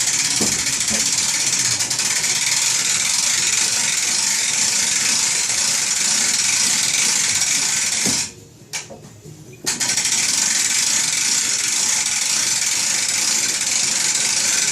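Steady, rapid mechanical rattling that stops for about a second and a half about eight seconds in, then resumes.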